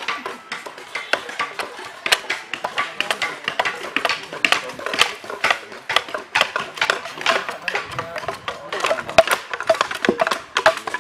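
Machete-like blades chopping and shaving blocks of wood, giving rapid, irregular knocks, with several blocks being worked at once.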